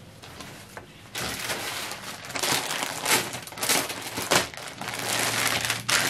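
Clear plastic packaging crinkling as a wrapped suit piece is handled and taken out of its bag, starting about a second in.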